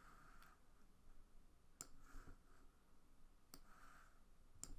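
Near silence broken by a few faint, sharp computer mouse clicks, well spaced apart.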